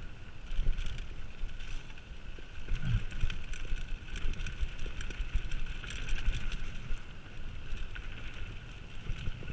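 Mountain bike riding fast down a dirt singletrack: wind noise on the microphone and a low rumble of tyres and suspension over the rough ground, with frequent small knocks and rattles from the bike, a firmer knock about three seconds in.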